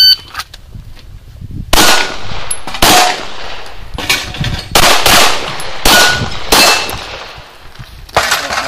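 The shot timer's start beep ends just at the start, then a USPSA competitor's pistol fires a string of about eight shots, roughly a second apart, some followed by the brief ring of a hit steel target.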